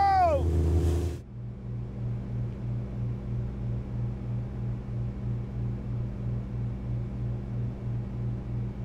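A man's shout, cut off about a second in, then a boat's engine running with a steady low throb that pulses about three times a second, heard from aboard.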